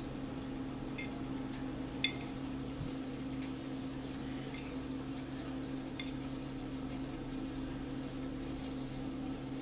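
A metal fork clicks against white plates a few times, loudest about two seconds in, as shredded beef is scooped into fried plantain cups. A steady low hum runs underneath.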